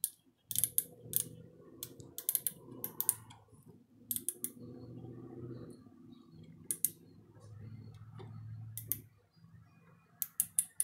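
Micrometer being turned down onto a valve spring clamped at coil bind in a vise, giving short sharp metallic clicks, mostly in groups of two or three, while the spring's bound length is measured. A low steady hum sits under the clicks and stops about a second before the end.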